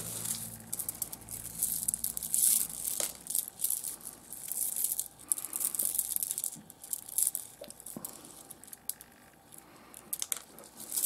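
Small rough seam opal pieces rustling, rattling and clicking against each other as they are stirred and shifted in cupped hands, in irregular handfuls with scattered sharp clicks.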